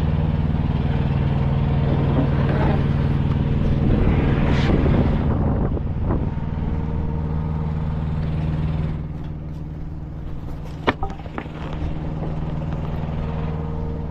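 Diesel semi-truck engine idling steadily, with a louder rush of noise about four to six seconds in and a single sharp click near the end.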